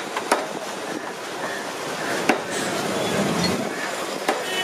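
Butcher's cleaver chopping boneless chicken on a wooden chopping block: four sharp, irregularly spaced chops over a steady background hum of noise.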